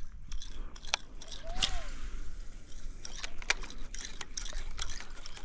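Scattered small clicks and knocks of fishing gear being handled aboard a plastic kayak, over a steady low rumble of wind on the microphone. A short rising-and-falling call sounds about a second and a half in.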